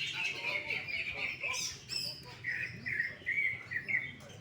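Cucak ijo (green leafbird) singing a fast, dense chirping song, which breaks into a run of separate short notes about halfway through.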